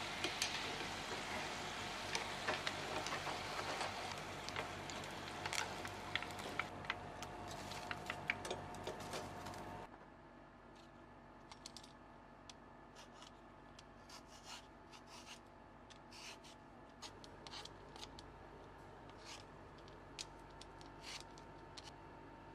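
Hot oil sizzling and crackling for about ten seconds, cutting off suddenly. Then a handheld vegetable peeler scrapes the skin off a raw potato in short, scattered strokes.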